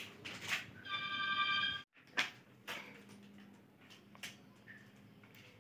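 A single electronic beep about a second in, lasting just under a second, followed after a break by a few light clicks and knocks.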